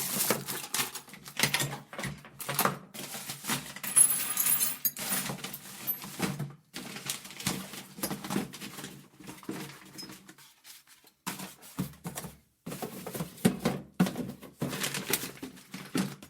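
Someone rummaging through workbench drawers: a steady stream of small metal tools and parts clattering and rattling, with drawers sliding and knocking. It pauses briefly about halfway through, then the rummaging starts again.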